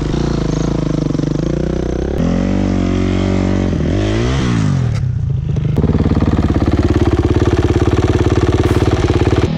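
Dirt bike engine running and being revved, its pitch rising and falling a few times, then held loud and steady at high revs from about six seconds in.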